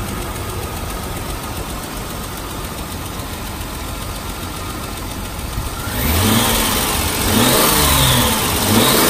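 Nissan GU Patrol's 4.5-litre petrol straight-six idling steadily, then revved up and back down in a few quick blips from about six seconds in.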